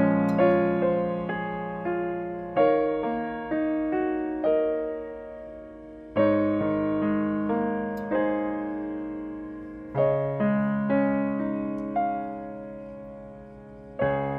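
Background piano music: a slow, gentle piece, with chords struck every few seconds and left to ring and fade.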